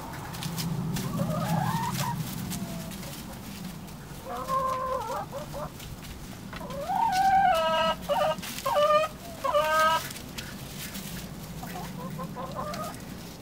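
Backyard hens clucking and calling: a short call about four seconds in, then a louder run of drawn-out, rising squawks from about seven to ten seconds in, and a few softer clucks near the end.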